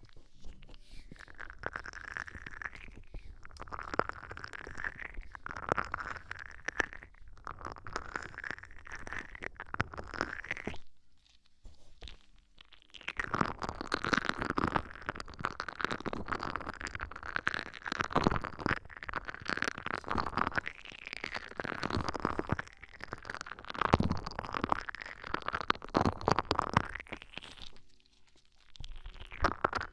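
Close-up ASMR scratching and rubbing on the microphone: continuous crackly scraping, stopping briefly about eleven seconds in and again near the end.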